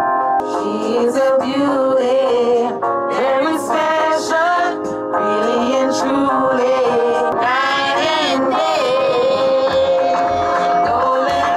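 Music with a voice singing over sustained held notes; a low bass beat pulses near the end.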